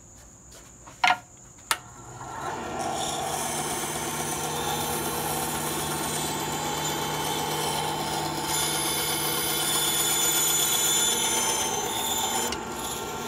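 Two sharp clicks, then a Ryobi benchtop bandsaw starts about two seconds in and runs steadily, its blade cutting a small wood blank around a pencilled circle.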